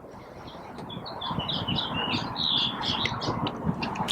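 A bird calling in a quick run of short, harsh chirps, several a second, starting about a second in, over a steady low background hum.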